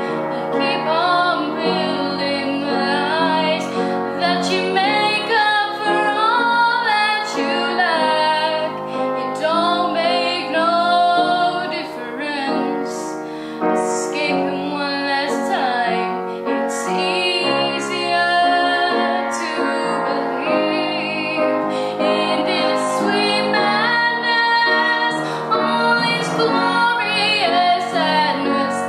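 A girl singing a solo song over sustained instrumental backing music.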